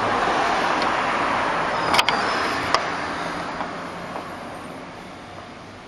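Steady noise of a passing road vehicle, fading away over several seconds. Two sharp metallic clicks, about two and three seconds in, come from the gas strut's end being handled against its fitting.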